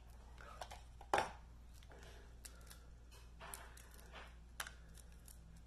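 Balut eggshell being cracked and peeled by hand: a scatter of small cracks and clicks, the sharpest about a second in.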